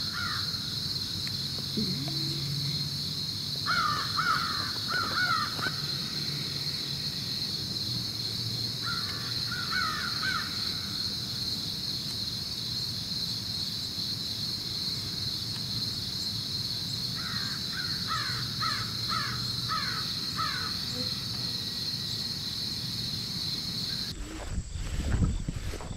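A steady high-pitched insect drone, with a bird calling in four runs of short repeated calls. Near the end the drone cuts off and rustling, knocking handling noise follows.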